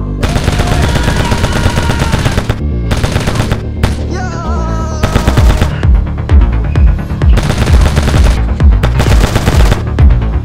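Several bursts of rapid machine-gun fire sound effects, each lasting a second or two, over background music with a heavy beat.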